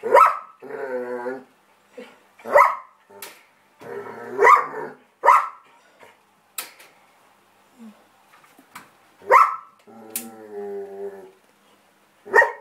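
German Shepherd barking at an electric pedestal fan: about six sharp barks spaced a second or more apart, with two longer, lower drawn-out vocalizations, one just after the first bark and one about ten seconds in.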